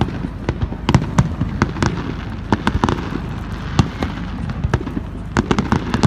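Fireworks going off in a rapid, irregular barrage of sharp bangs and crackles, several a second, over a steady low rumble.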